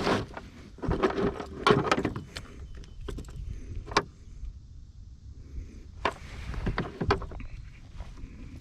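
Irregular knocks and clicks of gear being handled on a kayak, with several louder sharp knocks spread through.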